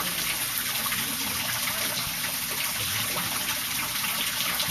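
Water running steadily from a garden fountain.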